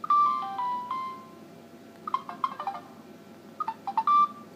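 SMS alert tones of a Samsung GT-S3370 (Corby 3G) previewed through the phone's small speaker: a short descending chime of three or four notes at the start. Clusters of short key beeps follow about two seconds in and again near the end, with another brief held tone after the second cluster.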